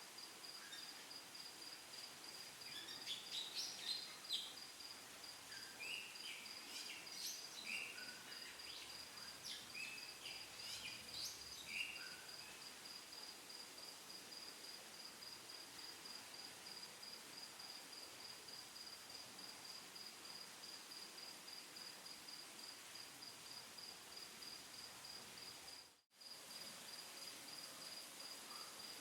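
A faint, steady, high-pitched pulsing trill throughout, with scattered short chirps over roughly the first twelve seconds. The sound drops out briefly a few seconds before the end.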